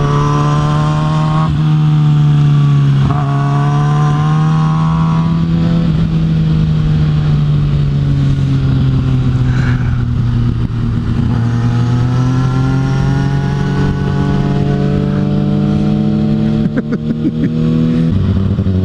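Kawasaki Ninja ZX-6R inline-four sport bike engine under way: the pitch climbs and breaks twice in the first three seconds as it upshifts, then holds a steady cruise, slowly rises again and drops near the end, with wind rush underneath.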